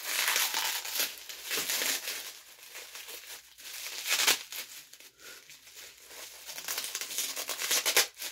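Packaging of a small makeup palette being crinkled and torn open by hand: uneven crackling, with louder bursts about four and eight seconds in.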